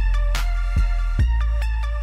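Background music: an electronic track with a heavy bass, a steady drum beat a little over two hits a second, and a stepping synth melody.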